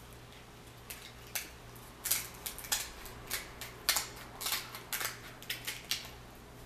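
Scissors cutting through a boiled king crab leg's shell: a run of about a dozen sharp snaps and crackles, loudest about two and four seconds in.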